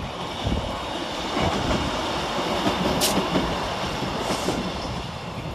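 ScotRail Class 156 Super Sprinter diesel multiple unit passing at speed, a steady rumble of its underfloor diesel engines and wheels on the rails, with one sharp click about three seconds in.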